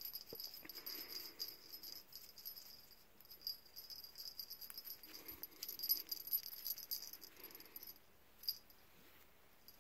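Cat's collar jingling in irregular flurries as the cat is scratched and moves about, with one last short jingle about eight and a half seconds in.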